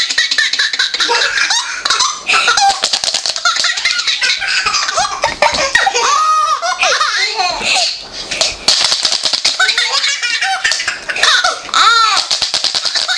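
Baby laughing in repeated high-pitched bouts of giggles and squealing laughter, with short breaks for breath between them.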